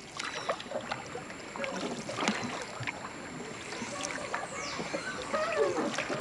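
Riverside outdoor ambience: water lapping, with scattered chirps, clicks and short gliding calls from wildlife.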